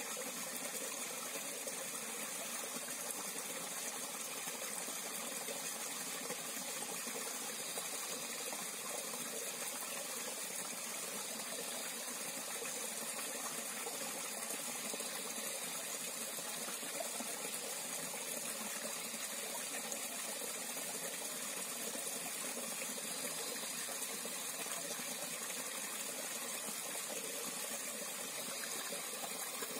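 Stream water rushing steadily, an even hiss of flowing water with no breaks.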